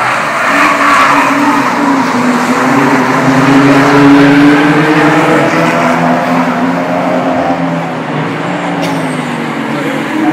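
Race car engines accelerating hard out of a corner as several cars pass, the engine notes holding high and then falling. Another engine note starts to rise near the end.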